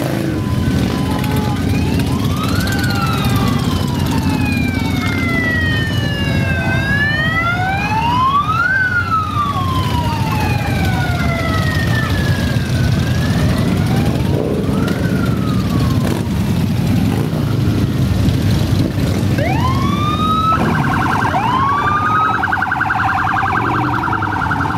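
A procession of Harley-Davidson motorcycles rumbling past at parade speed. A siren wails over them in slow rising and falling sweeps. Near the end it switches to quick upward whoops and then a fast warble.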